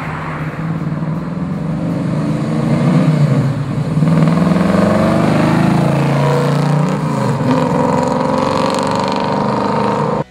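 1969 Camaro's 377-cubic-inch V8 accelerating on the road, heard through ceramic-coated headers and dual exhaust: the engine note rises and falls in pitch several times and grows louder about three seconds in.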